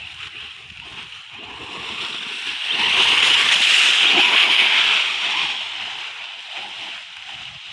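RC monster truck tearing through dry leaf litter, its tyres churning up a loud rustling hiss of leaves that swells as it passes close, about three seconds in, then fades.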